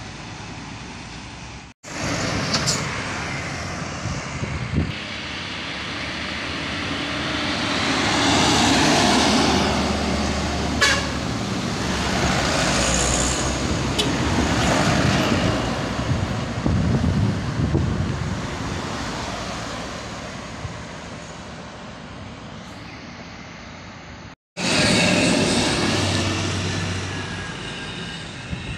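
Heavy diesel trucks climbing a steep hill, engines working hard under load. The sound swells as a truck passes close, about ten seconds in, then fades as it pulls away. Two brief gaps in the sound mark edits in the recording.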